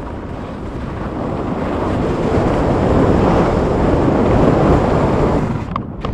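Rushing noise of skiing downhill: wind buffeting the microphone mixed with skis sliding over snow, building up and then dropping away near the end.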